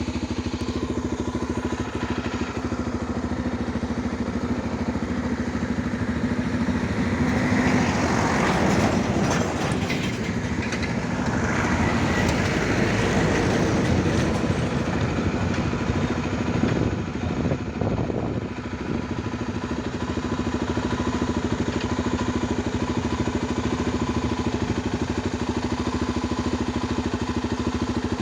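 A motor vehicle engine running steadily with an even low hum. Between about 8 and 19 seconds in, a louder, rougher noise rises over it, then settles back to the steady hum.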